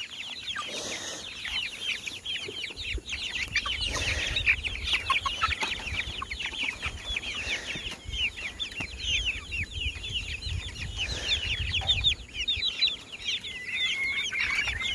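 A flock of hens clucking in a fast, dense chatter as they are hand-fed through chicken wire, with one longer drawn-out call near the end. A low rumble runs underneath through the middle.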